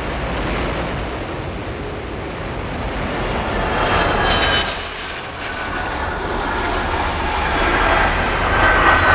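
F-22 Raptor jet fighter's engines in flight: a rushing noise with a thin high whine. It swells about four seconds in, drops away sharply, then swells again near the end.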